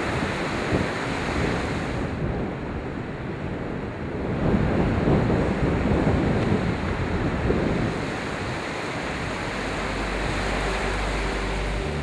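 Ocean surf breaking and washing up a sandy beach, a continuous rushing swell that grows louder about halfway through, with strong wind buffeting the microphone. A low steady hum comes in near the end.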